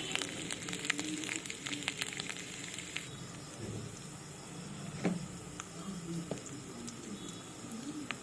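Hot oil sizzling and crackling in a kadai as wet ground urad dal paste is added to fried spices. The crackling is dense for about three seconds, then settles into a softer sizzle with occasional pops.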